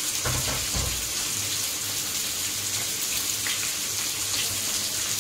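Whole tilapia shallow-frying in hot oil in a pan, a steady sizzle throughout, with a couple of soft low thumps about half a second in.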